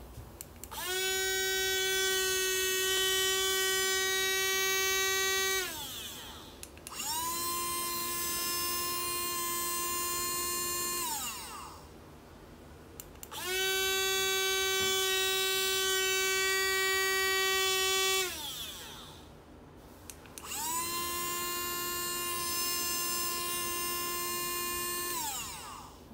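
Two small rechargeable USB blender cups, a 6-blade and a 4-blade, run empty in turn, four runs of about five seconds each. Each motor spins up to a steady high-pitched whine and glides down in pitch as it stops. The 6-blade unit's whine is the louder and slightly higher one.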